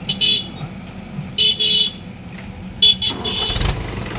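A vehicle horn honks in three short bursts, the middle and last ones doubled, over a steady engine hum. The engine gets louder near the end.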